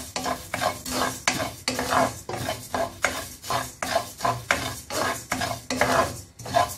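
Coriander seeds dry-roasting in a nonstick frying pan, stirred and scraped around with a spatula: quick rattling scrapes, about three strokes a second.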